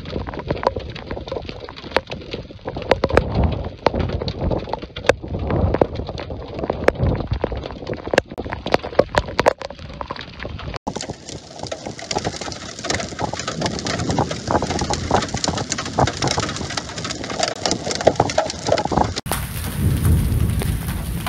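Hail and heavy rain falling: a dense patter of sharp clicks as hailstones strike, over a steady rushing hiss of rain.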